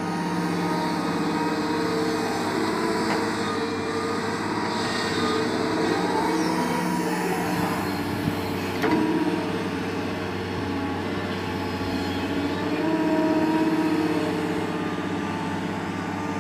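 Doosan crawler excavator's diesel engine running steadily under load as the hydraulics dig and swing the bucket, with a single sharp knock about nine seconds in and the engine briefly growing louder near the end.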